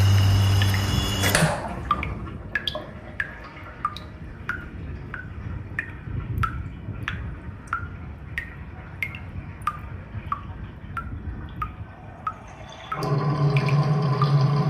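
Water dripping: single drops plinking, about two to three a second, unevenly spaced. Background music cuts off just after the start and comes back near the end.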